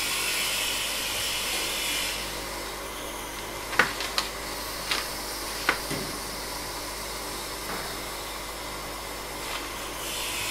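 Electrostatic grass applicator buzzing steadily as 6 mm fibres are sifted onto the model spruce's glued branches. A few sharp ticks come in quick succession about four to six seconds in.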